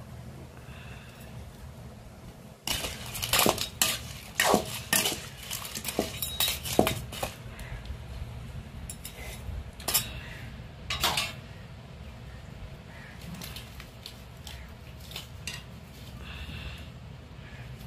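Metal ladle clinking and scraping against a metal cooking pan as crab pieces are stirred, in clusters of sharp knocks about three seconds in and again around ten seconds, with a steady low rumble underneath.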